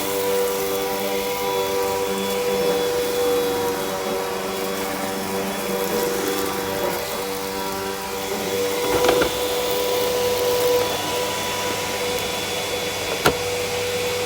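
Hoover Breeze Evo vacuum cleaner running steadily over a rug, a constant motor whine, with a single sharp click near the end.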